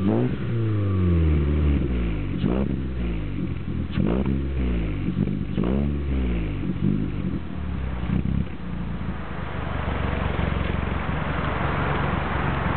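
Seat Ibiza 1.4 petrol engine heard at its exhaust tailpipe, free-revved in four quick blips. Each blip rises sharply and falls slowly back. After about two-thirds of the way through it settles to a steady idle.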